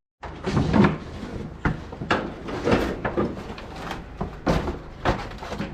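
A string of irregular knocks and clatters, like hard parts being handled and bumped together.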